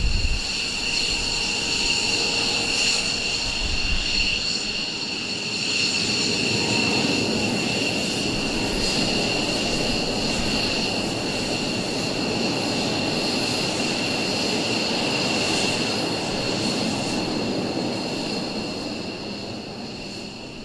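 F-15 fighter jets' twin turbofan engines running at taxi power as the jets taxi by: a steady high whine over a rushing rumble, fading over the last few seconds as they move off.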